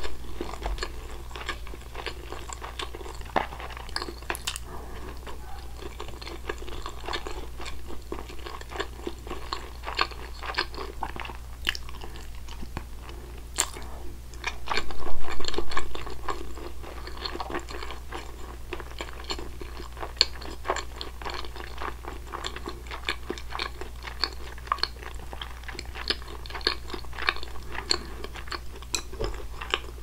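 Close-miked chewing and wet mouth clicks and smacks of someone eating soy-marinated raw salmon with white rice, louder for a couple of seconds around the middle. A steady low hum runs underneath.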